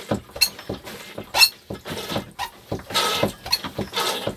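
Manual marine toilet pump being worked with quick strokes, about three a second, squeaking on several strokes. The squeak is the sign of a dry pump mechanism, which the owners cure by pumping a little olive oil through the system.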